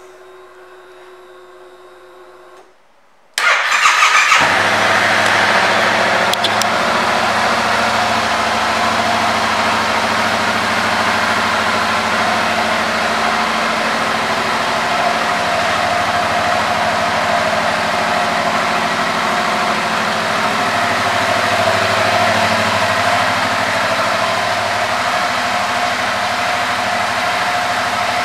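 Yamaha MT-07's 689 cc parallel-twin engine starting a little over three seconds in, after a faint steady hum, then idling steadily.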